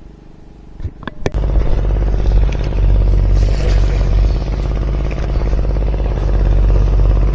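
A few sharp clicks, then an engine comes in loud about a second in and keeps running steadily.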